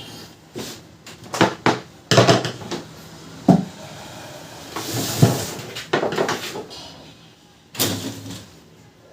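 Irregular plastic clacks and knocks from a laser printer's covers and parts being handled and opened.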